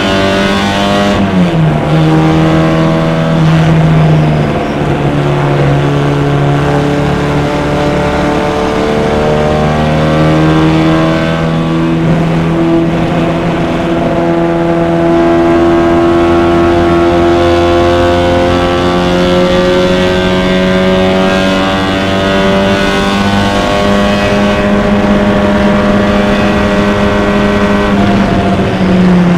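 Four-cylinder engine of a vintage MG race car, heard from the cockpit under racing load. Its note drops sharply about a second in, climbs again through gear changes, rises slowly through a long pull, then drops again near the end.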